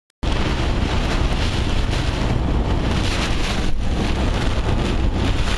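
Heavy rain beating on a moving car, heard from inside the cabin, with tyre spray and road noise: a steady, loud hiss over a low rumble. It thins briefly a little past halfway.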